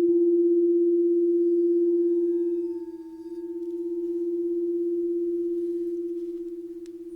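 Crystal singing bowl ringing with one steady, pulsing tone. It dips in volume about three seconds in, swells again, then eases off.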